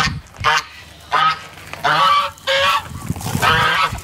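Domestic geese honking, a series of about five loud, harsh calls in quick succession.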